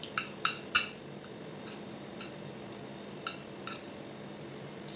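Metal spoon and fork clinking and scraping on a plate of rice while eating: three sharp clinks in the first second, then lighter taps about every half second.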